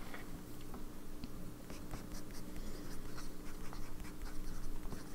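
Sailor 1911S fountain pen nib scratching and ticking across Maruman Mnemosyne notebook paper as words are handwritten in short strokes.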